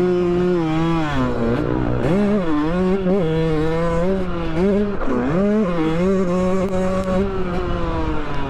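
Two-stroke dirt bike engine revving hard under load, its pitch climbing and holding, then dropping sharply several times as the throttle is rolled off or the rider shifts, heard from the rider's helmet.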